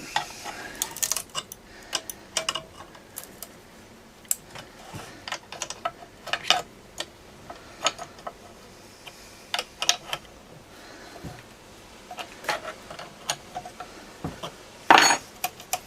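Irregular metallic clicks and taps of a spanner doing up the bar nuts on a 1974 Homelite XL-12 chainsaw, with a louder brief clatter near the end.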